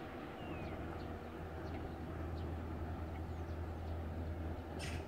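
Songbirds chirping over a steady low rumble, with a brief hiss about five seconds in.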